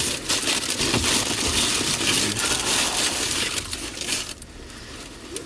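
Food packaging rustling and crinkling as it is handled, a dense crackle that dies down about four seconds in.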